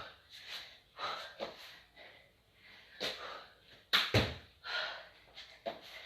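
A person doing burpees: hard, rapid breaths of exertion, with a thud at the start and another about four seconds in as they land from the jump or drop to the floor.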